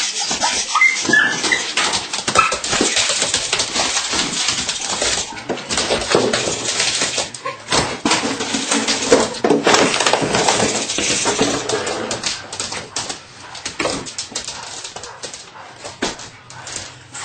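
Belgian Malinois puppy whimpering and yipping in play, over a busy rustling and scuffling noise.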